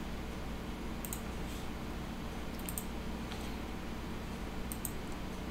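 A few faint, sharp clicks at a computer, several of them in quick pairs like double clicks, spaced a second or two apart, over a steady low electrical hum.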